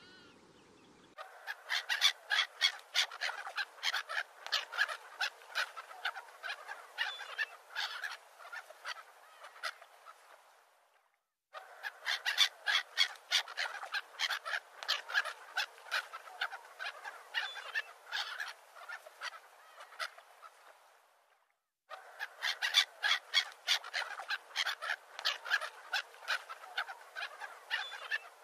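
A flock of farmyard fowl calling in quick, repeated calls, with no low end. It breaks off and starts again suddenly twice, about ten seconds apart, like a looped sound-effect recording.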